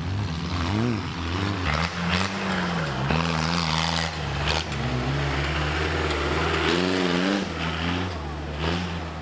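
Tractor diesel engines running under load, their pitch rising and falling as they rev, with a few sharp knocks through the noise.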